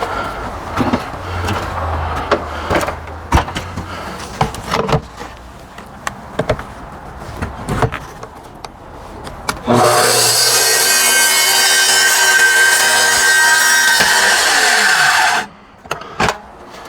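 Knocks and rattles of the track and saw being handled, then about ten seconds in a circular track saw starts and runs at full speed for about six seconds, cutting through half-inch wall sheathing, and winds down in falling pitch as it is switched off.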